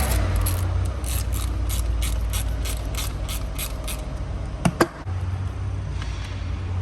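Ratchet wrench clicking at a steady pace, about three clicks a second, as the three bolts holding the diesel fuel filter in its housing are tightened. The clicking stops a little over halfway through, and two louder sharp clicks follow close together about a second later.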